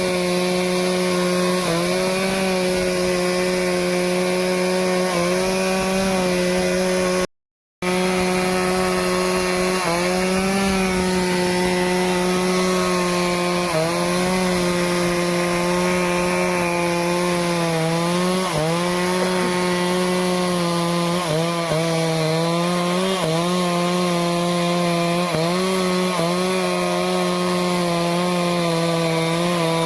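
Stihl chainsaw running at high revs while cutting teak wood; the engine note sags briefly again and again as the chain bites, more often in the second half. There is a short gap of silence about seven seconds in.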